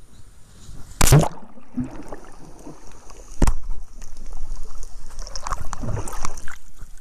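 A jumper plunges into the sea with a loud splash about a second in, and the sound goes underwater: muffled bubbling and churning water around the microphone. A sharp knock about three and a half seconds in.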